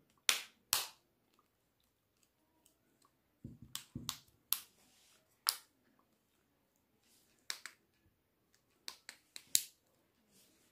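Sharp plastic clicks, about a dozen at uneven spacing, as the Samsung Galaxy A51's frame clips snap into place while the phone is pressed together around its edges. A couple of duller knocks come about four seconds in.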